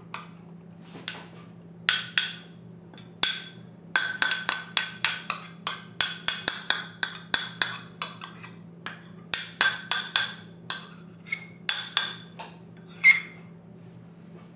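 A metal spoon clinking against glass in quick runs of bright, ringing clinks, at times about four a second, as dressing is spooned and stirred into a glass salad bowl.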